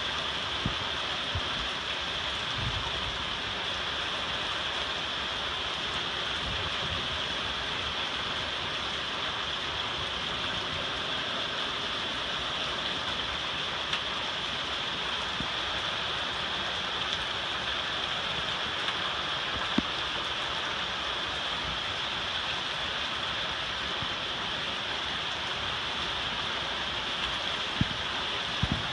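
Steady rain falling, an even hiss with a few sharp drip-like ticks, about two-thirds of the way through and near the end.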